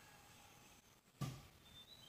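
Near silence with faint distant bird chirps, and a single soft thump a little over a second in.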